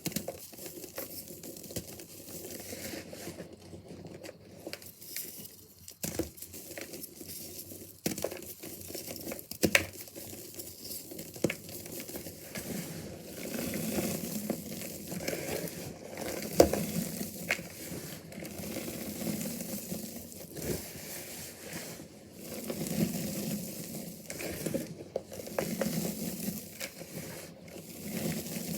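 Crunchy, dusty reformed gym chalk bars being crushed and crumbled by hand: an irregular crackle of small snaps, with soft powdery squeezes coming in from about halfway through.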